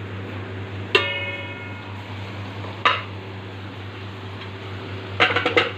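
A metal utensil knocking against a cooking pot: one ringing clang about a second in, a shorter clank near three seconds, then a quick run of clatters near the end, over a steady low hum.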